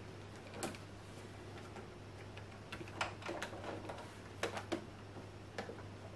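Irregular light clicks and taps of handling at a sewing machine that is not running, with a steady low hum underneath.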